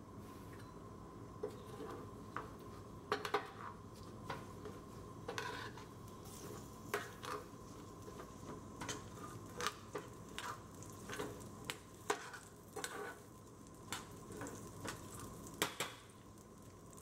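Metal spoon stirring and scraping a tadka of cumin seeds, garlic and green chilies in a stainless steel skillet, with irregular clinks of spoon on pan over oil sizzling on low heat.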